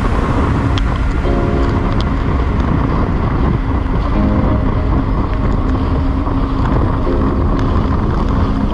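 Jet ski running at speed over open sea: a steady rush of engine, spray and wind buffeting the microphone. Background music of held chords plays over it.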